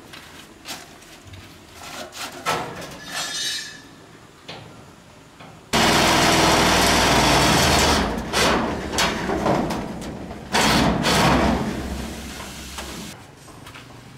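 Scattered knocks and clicks of tools being handled. Then a power tool starts abruptly about six seconds in and runs loudly, eases off, surges again and stops shortly before the end.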